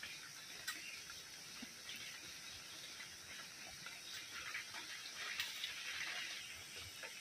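Faint high peeping of young chicks over a steady hiss, with a few light clicks.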